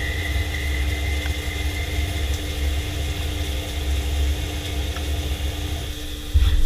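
CNC machine tool running: a steady low hum with a high whine that slowly fades over the first few seconds, and a louder low rumble starting near the end.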